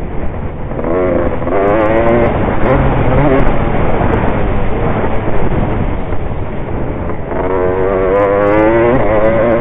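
Motocross bike engine at race pace, heard from on the bike. It revs up and drops back as the rider accelerates along the track, with two clear rising climbs in pitch.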